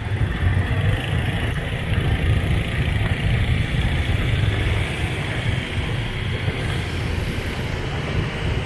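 Steady road traffic noise with vehicle engines and a constant low rumble, heard while moving along a busy city street.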